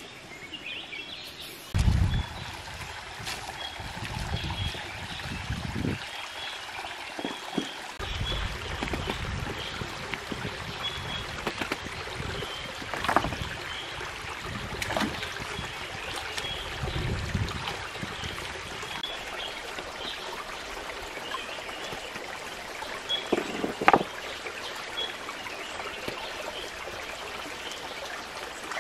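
Shallow rocky stream trickling, with splashes and sharp knocks as hands work among the stones in the water. A faint, high chirping repeats throughout, and there are low rumbles in the first half.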